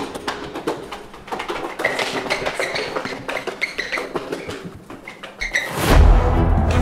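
Quick taps and scuffs of a person scrambling and running across a hard floor, with a few short high squeaks. Music comes in with a low boom near the end.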